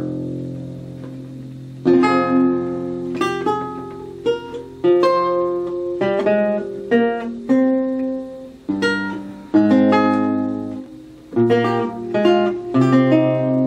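Solo 14-course archlute playing a toccata: plucked chords and short runs of notes that ring and fade, in uneven bursts, over deep bass notes that sustain beneath them.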